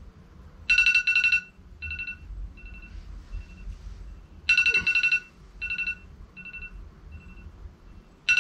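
Electronic alarm ringing: a loud double beep followed by softer, fading repeats, the pattern starting over about every four seconds.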